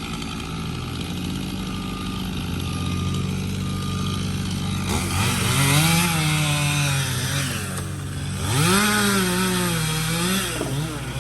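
Small gas-engine stump grinder running, revving up twice, about five seconds in and again near the end, with the engine pitch rising and wavering as the noise of the cutting wheel grows.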